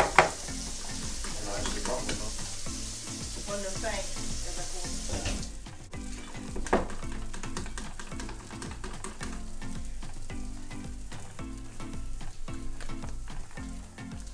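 Sausage links sizzling in a frying pan, the hiss cutting off about five seconds in; after that a whisk clicks rapidly against a metal bowl as pancake batter is mixed.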